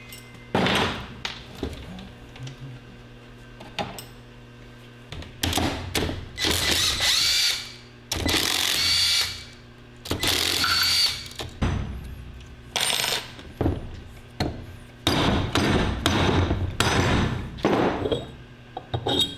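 Power driver run in a series of short bursts of one to three seconds each, backing bolts out of an engine being torn down.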